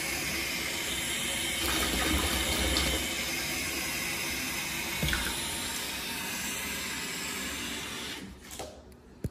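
Bathtub faucet running, a thin stream of water pouring into a shallow pool in the tub, with a few soft knocks. The water sound drops away about eight seconds in.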